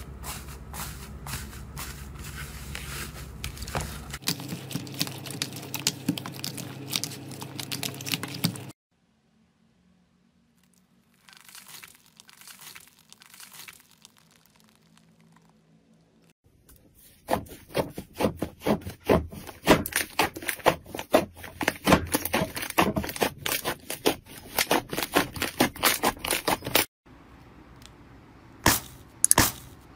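Slime being squished, pressed and stretched by hand: quick runs of crackling, squelching and sharp pops as air pockets and foam beads in the slime give way. A short near-silent gap comes about a third of the way in, and the popping is loudest and densest in the second half.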